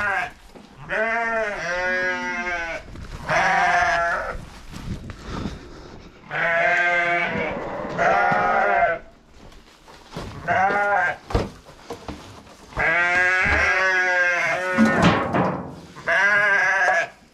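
A flock of sheep bleating over and over at feeding time, about nine wavering calls with short pauses between them.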